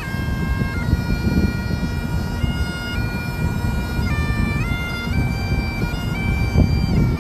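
Bagpipes playing a melody, the chanter stepping between held notes over the steady drone, with a low rushing noise underneath.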